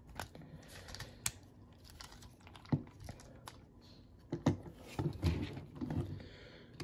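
Hard plastic parts of a Transformers Sandstorm action figure clicking and rattling as it is folded into dune buggy mode by hand, with a cluster of knocks and low thuds from about four to six seconds in as the toy is set down on a tabletop.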